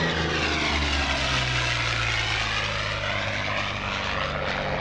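Curtiss P-40 Kittyhawk's V-12 piston engine and propeller on a low fast pass. The engine note drops in pitch about a second in as the fighter goes by and draws away, with a swirling, phasing sweep in the sound as it passes.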